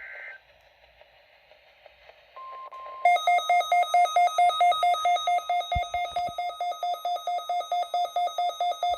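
NOAA Weather Radio weekly test: the 1050 Hz warning alarm tone comes on about two and a half seconds in, after a short data tone and a moment of faint hiss. Half a second later the weather radio receiver's own alarm sets off, beeping loudly at about four beeps a second.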